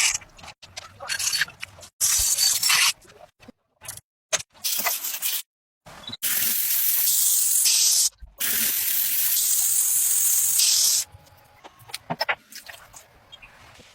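Hissing spray in several separate bursts lasting one to three seconds each, each cut off abruptly, with quieter scraping and clicks between them.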